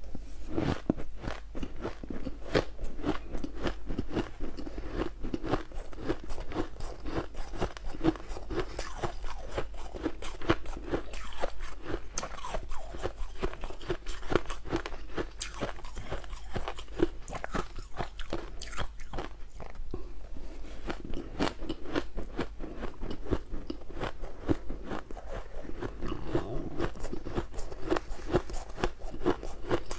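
Soft shaved ice being bitten and chewed close to the microphone: a continuous run of quick, crisp crunches.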